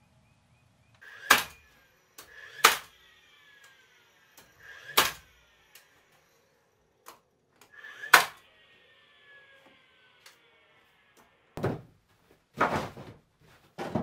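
Cordless finish nail gun firing four times, each sharp shot with a short whir of its motor just before and a falling whine after, the shots a few seconds apart. Three duller knocks on wood follow near the end.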